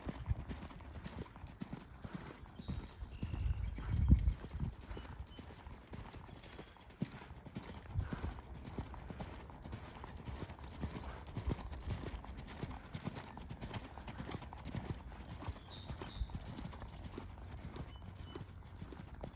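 Hoofbeats of a ridden horse, an uneven run of thuds and clicks, with one louder thud about four seconds in.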